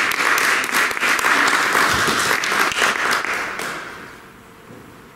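Audience applauding: dense clapping that dies away about four seconds in.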